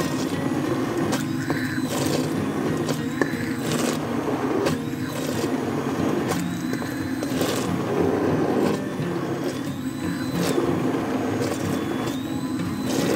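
Hand-held immersion blender puréeing a thick tomato-and-butter curry sauce in a metal pot. It is pulsed on and off repeatedly, its motor whine rising and levelling off each time it starts.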